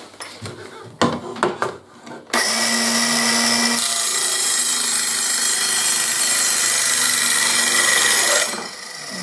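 Cordless circular saw with a freshly sharpened blade. After a couple of seconds of handling clicks it is started, runs up free for a moment, then cuts steadily through a board for about five seconds before winding down near the end. The cut goes through easily, as a sharp blade should.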